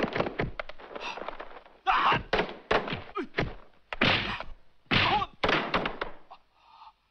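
Martial arts film fight sound effects: a rapid run of punch and blow impacts, dozens of thuds in quick succession, thinning out near the end.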